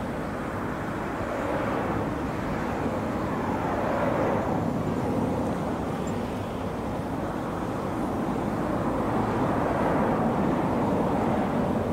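Steady rumbling drone of a large ship's engines and machinery carried across the water, swelling and easing slowly.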